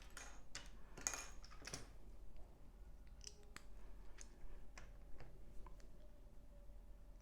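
Small plastic LEGO pieces being handled and pressed together: scattered sharp clicks and taps, with rustling handling noise over the first two seconds.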